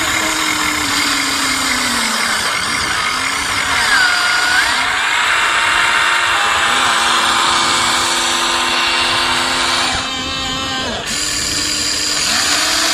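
Electric motors and gearboxes of a Huina radio-controlled model excavator whining as the boom, arm and bucket dig and the upper body swings. The whines shift in pitch and start and stop as each movement begins and ends.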